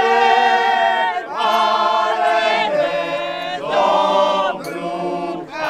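A group of people singing together in long held notes, several voices at once.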